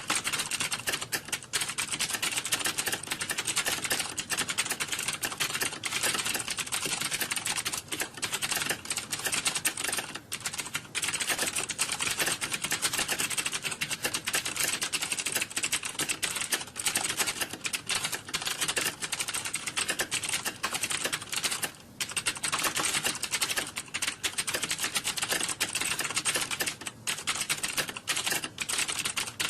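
Computer keyboard being typed on fast and without letup: a dense stream of key clicks, with one brief pause late on.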